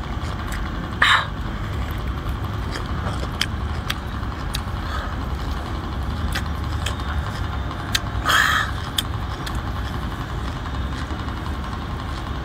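Steady low rumble, with scattered small clicks and smacks of chewing and peeling food, and two short breathy bursts, about a second in and again around eight seconds.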